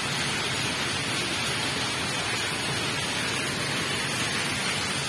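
Light rain falling steadily: an even hiss of drops.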